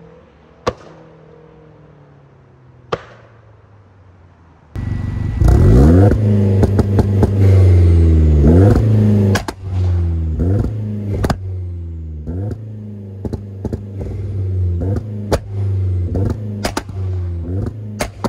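Hyundai Genesis Coupe 2.0T's turbocharged four-cylinder breathing through a CNT V3 exhaust. It is faint at first as the car pulls away. About five seconds in it suddenly becomes loud close behind the tailpipes, revving up and holding high for a few seconds. It is then blipped about once a second, each blip falling away, with sharp cracks among them.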